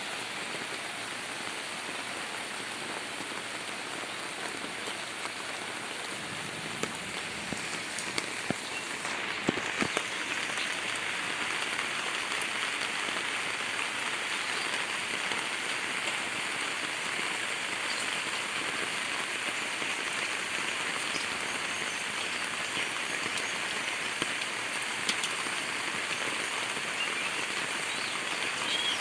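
Steady heavy rain falling and splattering on surfaces, a little louder from about a third of the way in, with a few louder single drops striking around then.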